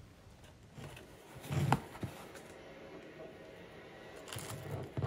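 Clear plastic wrapping crinkling and rustling as a small model airplane is handled and pulled out of its bag, with a few short knocks; the loudest comes about a second and a half in.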